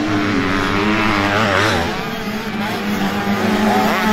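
Several motocross bikes racing, their engines revving up and down through the gears, with several pitches rising and falling over one another.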